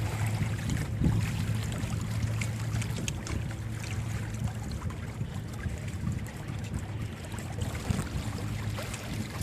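A small sailboat moving through the water: water washing and slapping against the hull with scattered small splashes, and wind buffeting the microphone. Under it runs a steady low hum.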